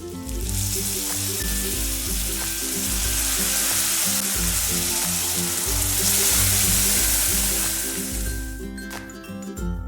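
Food sizzling as it fries in hot oil in a pan. The sizzle starts just after the beginning and dies down near the end.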